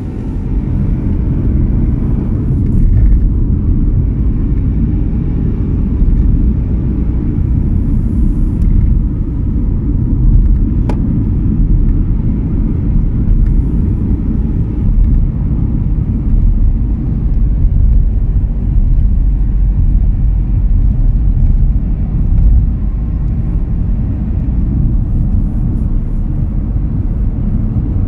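Car being driven, heard from inside: a steady low rumble of engine and road noise.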